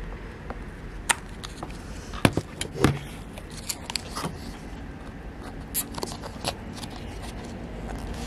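Fingers prying and gripping at the tight-fitting lid of a paper congee cup, giving scattered clicks, small snaps and scrapes as the lid resists coming off. A low steady hum runs underneath.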